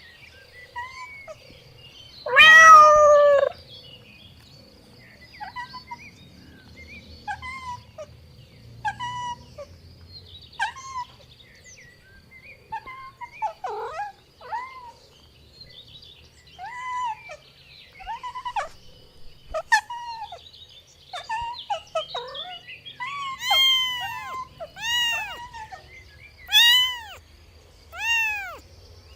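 Kittens meowing again and again in short rising-and-falling calls, with one loud, drawn-out meow near the start. The meows get louder and come closer together near the end.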